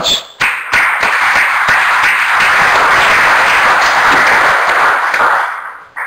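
Audience applauding: dense clapping that starts about half a second in, holds steady, and dies away near the end.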